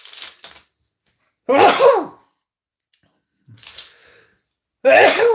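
A man sneezing twice, loudly: once about a second and a half in and again near the end, with a fainter catch of breath between.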